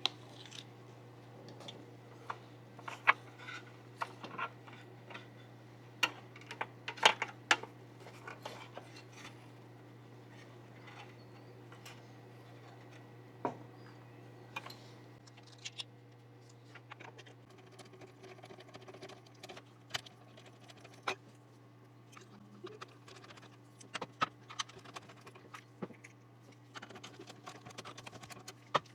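Hands handling a PC motherboard and build parts: irregular clicks, taps and light knocks, a few of them sharper, over a steady low hum.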